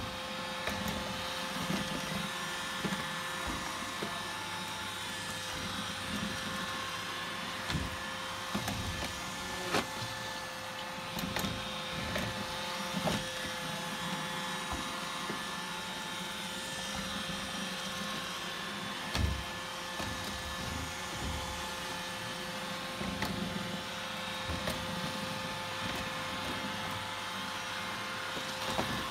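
iRobot Roomba robot vacuum cleaner running steadily with its motor hum and whine, and a few short sharp knocks.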